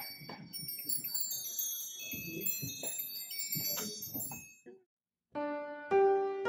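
Wagstaffe, London musical clock playing a tune on its bells, many short ringing notes, which break off after about four and a half seconds. Soft piano music begins near the end.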